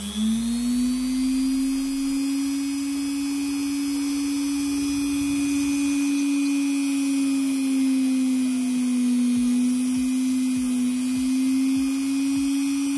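Dremel rotary tool in a drill stand, fitted with a 1 mm metal drill bit and set to a low speed, drilling a hole into a piece of amber. The motor whirs up to speed at the start, holds a steady hum with a slight dip in pitch around the middle, and starts to wind down at the very end.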